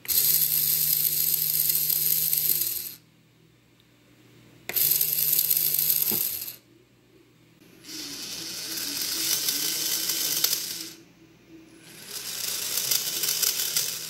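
REV Robotics DC gearmotor spinning a wheel under joystick control, its gearbox whirring and rattling in four runs. The first two start at full speed at once; the last two speed up gradually, since the motor's speed follows how far the stick is pushed.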